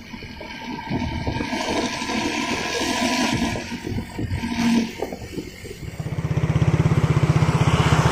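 Traffic rushing past, then about six seconds in a bus's diesel engine close by sets up a loud, rapid, even low throb through its growling 'ngorok' exhaust.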